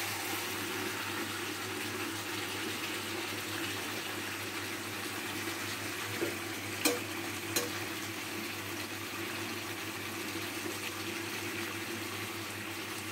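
Chicken curry frying in a wide pan on a gas stove, a steady sizzling hiss as it is stirred with a ladle. The ladle knocks against the pan twice about seven seconds in.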